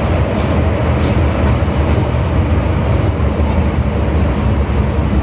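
MTR Island Line M-train running through the tunnel, heard from inside the car by the doors: a loud, steady rumble of wheels and traction equipment, with a few faint ticks.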